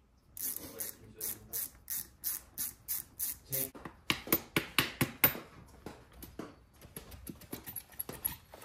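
Hand tools clicking on a carburettor being taken apart for a jet change: regular sharp clicks about three a second, a burst of louder, quicker clicks a little past the middle, then scattered softer clicks.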